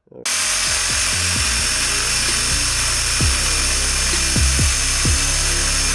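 Power drill with a hole saw cutting through a ski: a loud, steady high whine and hiss that starts abruptly just after the start. Under it runs hip-hop music with deep bass notes that slide down in pitch.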